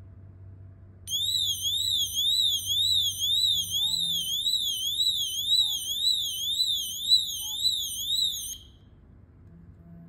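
Built-in siren of a Tuya Wi-Fi door sensor sounding its door-open alarm, set off by the magnet being parted from the sensor. It is a high electronic tone warbling up and down about twice a second. It starts about a second in and cuts off suddenly after some seven seconds.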